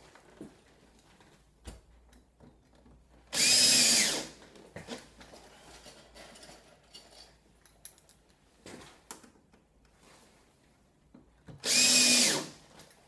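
Cordless drill running in two short bursts of about a second each, a few seconds apart, as it bores into the wooden window casing to mount a cord cleat. Faint handling clicks come between the bursts.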